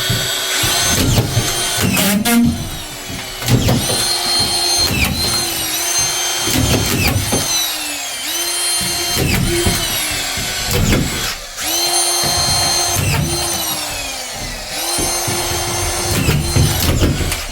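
Power screwdriver driving drywall screws through plasterboard ceiling sheets into the timber, about a dozen in a row. Each screw is a short motor whine that drops in pitch as the screw bites and stops as it seats, with knocks between.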